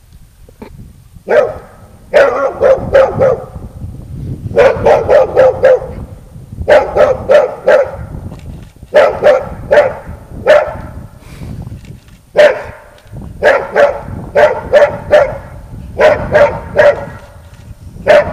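German shepherd dog barking in repeated volleys of several quick, loud barks every couple of seconds, starting a little over a second in. It is barking at a person waving a stick at it, the threat part of a temperament test.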